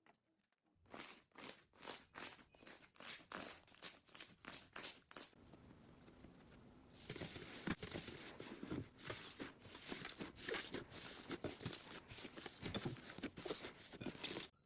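Slime being worked by hand, making sticky clicks and pops about three a second, then a denser crackling from about halfway through, cutting off suddenly at the end.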